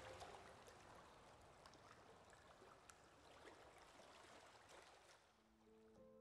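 Near silence: a faint hiss between two background music tracks. The next track begins softly with held notes near the end.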